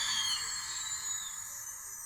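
The reverberant tail of a high-pitched scream sound effect dying away, fading steadily over the two seconds.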